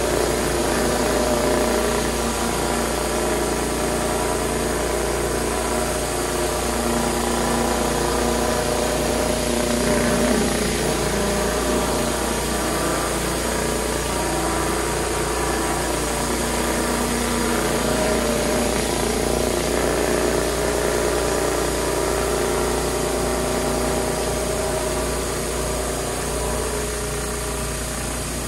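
Pressure washer running steadily, feeding a 24-inch surface cleaner whose spinning spray bar blasts water onto wooden deck boards in a constant hiss.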